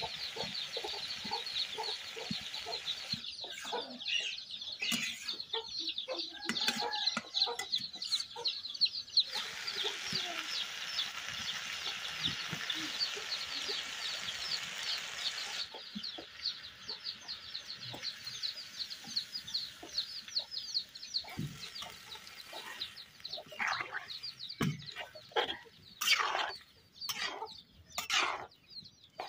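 Chickens clucking and chicks peeping in quick, dense chirps, over the sizzle of fish and okra frying in a metal kadai. Near the end come a few sharp scrapes of a metal spatula in the pan.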